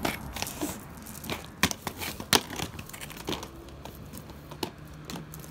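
Irregular clicks, knocks and scuffs of roller skates and inline skates clattering on concrete as the kids stumble and crawl at the edge of the grass, with rustling between the knocks.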